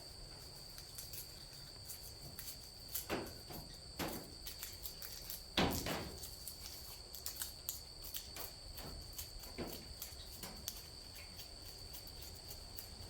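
Crickets trilling steadily at a high pitch, with occasional crackles and clicks from dry garlic stems and papery skins being handled and trimmed; the sharpest snap comes about five and a half seconds in.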